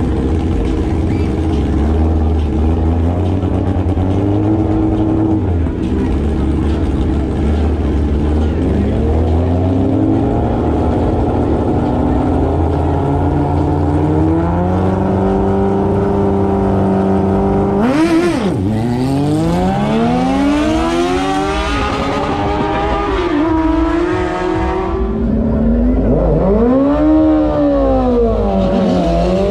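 Two street-bike engines running on a drag strip starting line, held at steady revs and then brought up in steps. About two-thirds of the way in they launch, their pitch sweeping up again and again as they shift through the gears. Near the end a motorcycle engine revs up and down.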